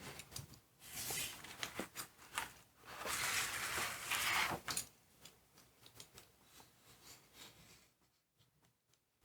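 Razor blade cutting through a paper stencil: faint scratchy rasps in short bursts, the longest lasting about two seconds, with small clicks between them, dying away near the end.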